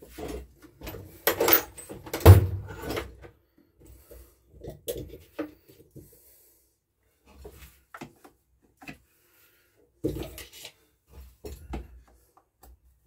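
Tools and chainsaw parts being handled on a wooden workbench: a run of clattering knocks with one heavy thump about two seconds in, then sparse light taps and rubbing.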